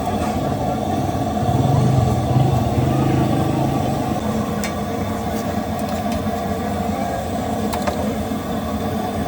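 Street traffic: a motor vehicle's engine swells as it passes close by about two seconds in, over steady road noise.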